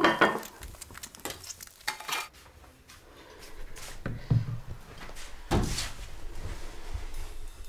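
Dishes clattering: ceramic plates and a frying pan handled on a kitchen counter, a loud clatter at the start followed by a string of clinks, then a few scattered knocks.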